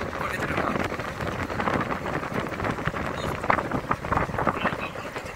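Wind buffeting the microphone on the deck of a moving river boat, over the steady noise of the boat's engine.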